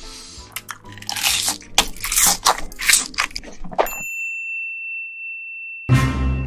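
Close-miked eating sounds, wet chewing and slurping of seafood stew, in irregular bursts for about four seconds, then a single steady high beep-like tone held about two seconds, cut off by a loud sudden hit near the end.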